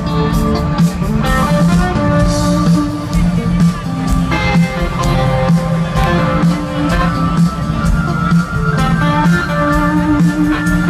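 Live rock band playing an instrumental break between sung verses, led by guitar over a steady drum beat and bass.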